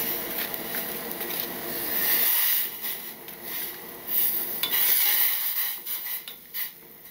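Wooden chopsticks scraping sticky natto out of its plastic tray and stirring it into a small stainless-steel saucepan of soup: rubbing and scraping sounds, loudest around two seconds in and again from about four to six seconds.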